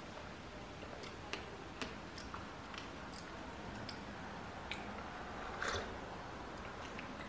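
Quiet mouth sounds of sipping and chewing a strawberry latte with strawberry pieces in it: small irregular wet clicks, with a louder sip about five and a half seconds in.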